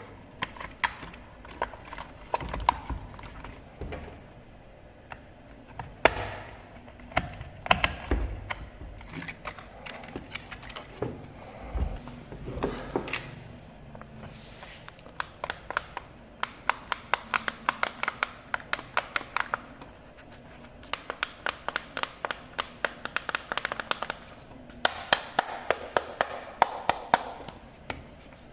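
Hands handling small objects at close range: scattered taps and knocks, then several runs of quick, rapid clicking.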